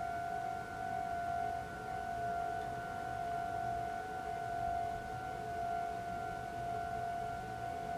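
Japanese railway level-crossing warning alarm sounding for an approaching train, heard as a steady high ringing tone that holds without a break.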